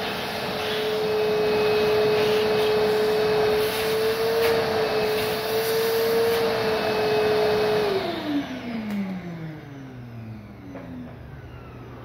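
Electric motor and fan running steadily with a hum and a rush of air, then switched off about eight seconds in, its pitch falling as it winds down.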